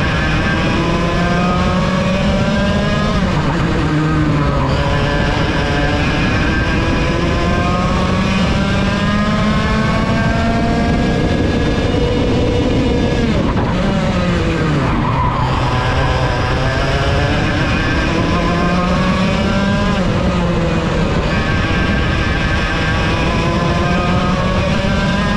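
Vortex VLR 100cc two-stroke kart engine heard onboard at racing speed, its pitch climbing on each straight and dropping each time the driver lifts for a corner. The deepest drop, for a slow corner, comes about halfway through before it revs back up.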